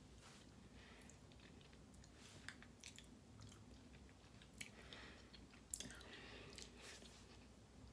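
Faint close-up chewing of crunchy Cap'n Crunch cereal in milk, with scattered crisp crunches and one sharper crunch a little before six seconds in.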